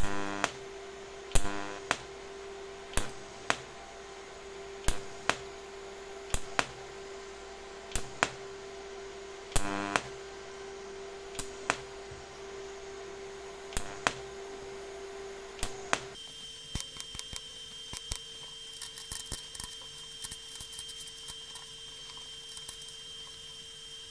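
TIG welder striking short spot tacks on a stainless steel bolt and washer at 160 amps without filler. There are sharp cracks as the arc starts, three of them with a brief buzz, over a steady hum. The hum shifts higher about two-thirds of the way through, and the cracks come thicker.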